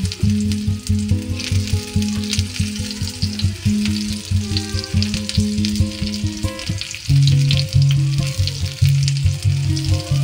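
Background music with a steady, rhythmic bass line, over hot oil sizzling and crackling as spinach pakora batter fries in a miniature pan.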